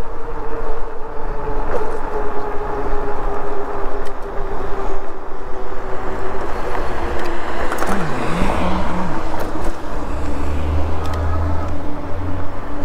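Himiway Zebra e-bike under way: its rear hub motor gives a steady whine that slowly falls in pitch, over continuous wind and road noise. A deep rumble swells about ten seconds in.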